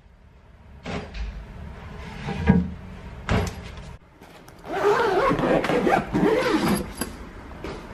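Handling noise from packing a hard-shell suitcase: scattered knocks and rustling of the case and its fabric lining, with a louder, busier stretch of shuffling near the middle.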